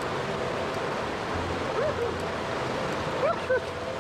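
Fast river rapids rushing steadily over rocks. A few short rising-and-falling calls sound about two seconds in and again near the end.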